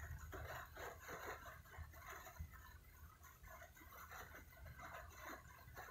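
Faint, quick, rhythmic panting, about two or three breaths a second, over the steady low rumble of a truck cab on the move.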